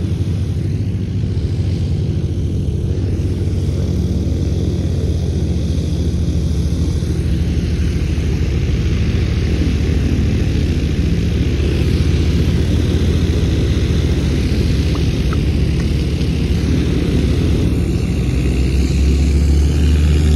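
Piper PA-28's single piston engine and propeller running as it rolls along the runway, a steady low drone that grows a little louder near the end.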